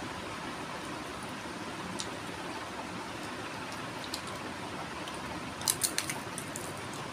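Eating by hand: wet squishing of fingers mixing rice and curry, and chewing, with a quick run of sharp clicks a little before the end, over a steady hiss.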